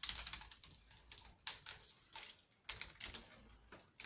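A ball rattling and clicking its way down a K'nex ball machine's track: a quick, uneven run of light clicks and clatters that dies away near the end.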